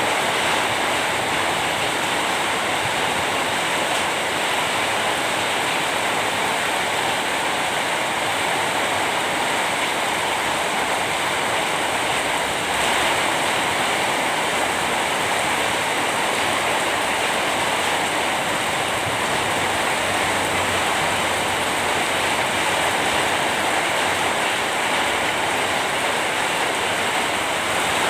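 Steady rain falling: an even, unbroken hiss with no single drops or events standing out.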